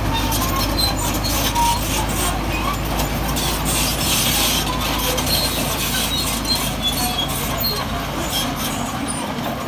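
Heavy diesel construction machinery running with a steady low engine rumble, a brief hiss about four seconds in, and the deepest rumble easing off near the end.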